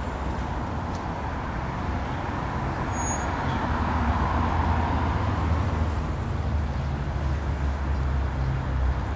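City street traffic: steady road noise with a deep rumble that swells in the middle, as of a vehicle going past.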